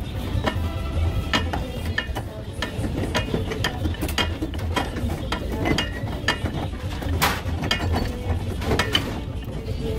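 Large aluminium pipe wrench working a brass union on copper pipe, its jaws clicking and clanking irregularly against the fitting as it is swung and reset to loosen the union, over a steady low hum.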